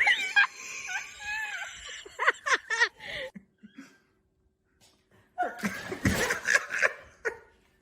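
A person laughing in bursts, with a pause of about two seconds in the middle.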